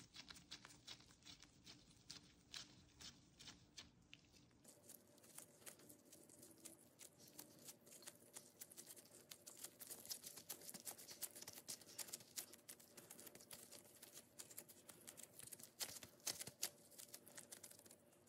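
Disposable-gloved hands squeezing and kneading mashed potato and potato-starch dough: soft, irregular clicks and crackles from the gloves working the dough.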